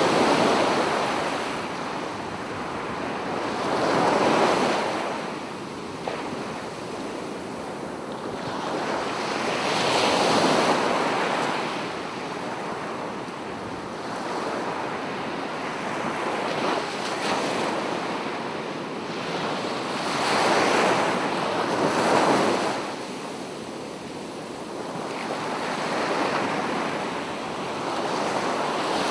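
Ocean waves breaking and washing up a sandy beach, the surf swelling and ebbing every few seconds, with a steady hiss between the swells.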